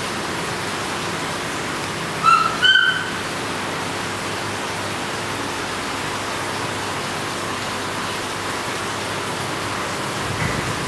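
Steady hiss of aquarium water flow and aeration, with a few short high chirps about two and a half seconds in.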